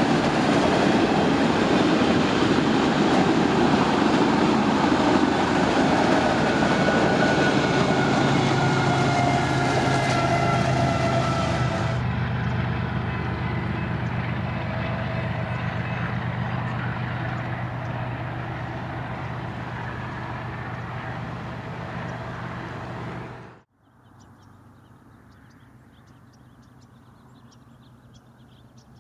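A train rolling past on steel rails, loud at first and then fading steadily as it moves away. About 24 s in the sound cuts off abruptly to quiet outdoor background with faint, rapid high ticking.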